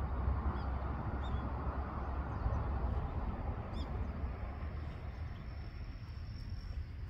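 Outdoor ambience at an open hilltop lookout: a steady low rumbling hiss with a few short, high bird chirps, and a faint steady high note from about halfway through.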